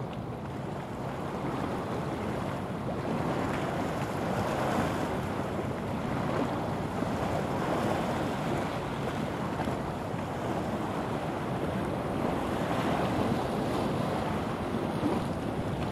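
Rushing of water from a passing ship's bow wave and wash, mixed with wind buffeting the microphone; the noise swells and eases every few seconds.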